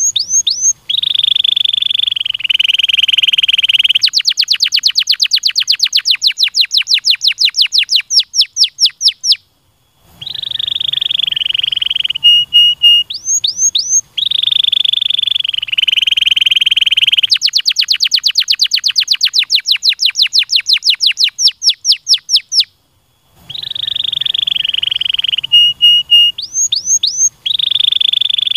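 Domestic canary singing a loud, rolling song: buzzy held trills alternate with long runs of fast rising whistled notes, about eight a second. There are two brief breaks between phrases.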